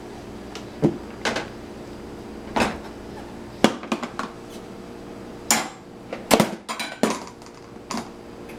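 Dishes and cutlery being pulled from a dishwasher and knocked together: about ten separate clinks and clatters, the loudest cluster around six and a half seconds in, over a faint steady hum.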